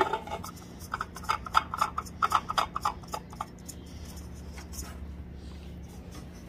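A new spin-on oil filter turned onto its threaded mount by hand: a quick run of rubbing clicks, about four or five a second, that dies away after about three and a half seconds.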